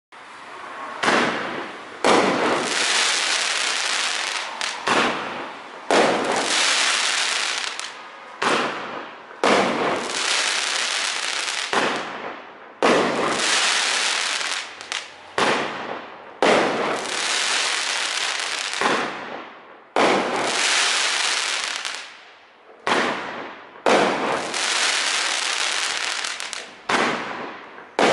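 Shogun Sizzler 16-shot 500 gram firework cake firing shot after shot, more than a dozen in all. Each shot starts with a sharp pop, followed by a dense crackling hiss that fades over one to three seconds.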